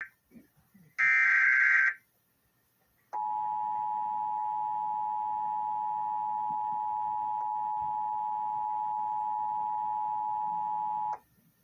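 Emergency Alert System signalling: one short screechy burst of SAME header data tones, then after a brief pause the EAS two-tone attention signal, a steady dual tone held for about eight seconds that cuts off sharply, announcing an emergency alert broadcast.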